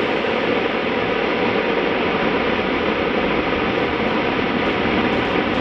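Homemade F rocket motor burning on its standard propellant mixture: a steady rushing hiss.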